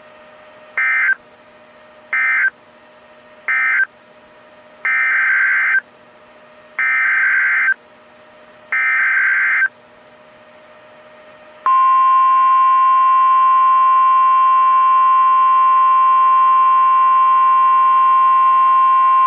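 Emergency alert data tones from a NOAA Weather Radio broadcast. Three short warbling digital bursts close out the severe thunderstorm warning, then three longer bursts form the SAME header of a new tornado warning. A steady, loud single-pitched warning alarm tone near 1 kHz then sounds for about nine seconds.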